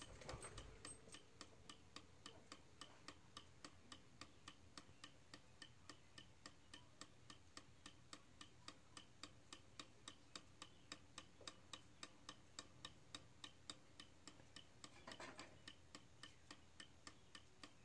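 Small German Schaukeluhr (swing clock) ticking faintly, quickly and evenly: its clockwork movement is kept going by the doll on a swing that serves as the pendulum.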